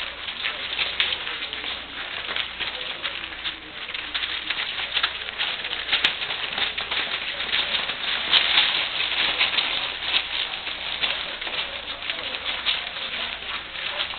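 A litter of English Springer Spaniel puppies feeding together: a steady, dense patter of many small smacks and clicks from eating and lapping.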